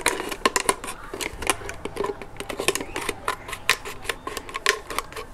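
Scissors cutting around a thin plastic water bottle: a quick, irregular run of sharp snips and crackles as the blades bite and the plastic flexes.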